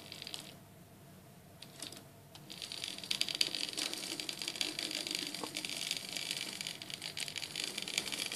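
Motor of a Dapol 00 gauge LMS 'Pug' 0-4-0 model locomotive starting up about two and a half seconds in, a steady whirr over fast, even rattling of its wheels on the track, as it gets going again after stalling on the unpowered section of the points.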